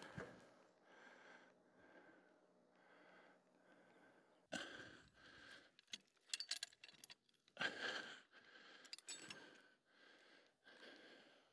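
Faint clinks and rattles of metal rigging being handled, a winch line and hook being worked through a trailer tie-down point, with a few breaths in between.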